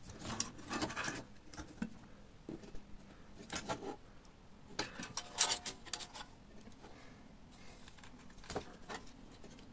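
Scattered light clicks, taps and rustles as the parts of a disassembled mini inverter welding machine are handled by hand: its plastic front panel, circuit board and metal casing knocking and shifting against each other.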